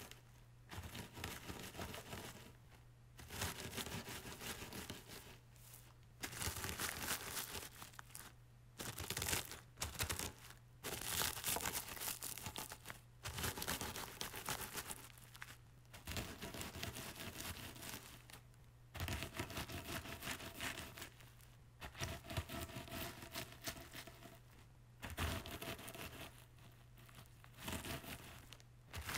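Pretzels being crushed with a rolling pin inside a sealed plastic bag: the bag crinkles and the pretzels crunch in bouts of a second or a few, with short pauses between.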